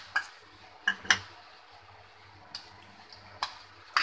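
Metal spoon clinking and scraping against small bowls while ground spices are scraped out: about five separate sharp clinks, the loudest a little after a second in.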